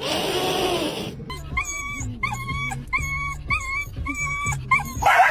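A cat hissing for about a second, then a dog whining in short, high, repeated whimpers, about two a second.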